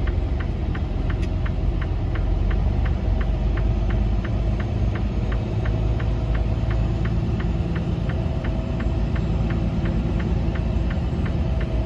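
Diesel truck engine running with a steady low rumble, heard inside the cab, with an even ticking about three to four times a second throughout.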